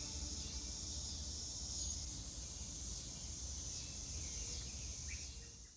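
Outdoor summer insect chorus, a steady high even trill, over a low background rumble, fading out near the end.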